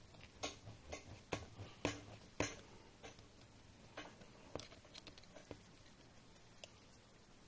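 A series of light clicks and taps, the kind made by small metal parts and hand tools being handled during assembly. The clicks come quickly in the first couple of seconds, then thin out to a few scattered ones.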